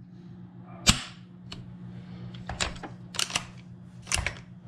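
Freshly lubricated Lee Enfield .308 bolt-action rifle being cycled and dry-fired on an empty chamber. It gives a sharp metallic snap about a second in, then several groups of clicks as the bolt is worked.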